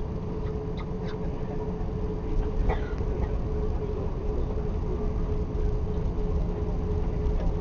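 Cabin noise of an Airbus A340-600 taxiing: a steady low rumble with a constant hum. A few brief faint higher sounds come about one and three seconds in.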